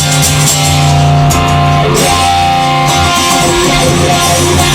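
Rock music with guitar and bass playing between sung lines, with no vocal.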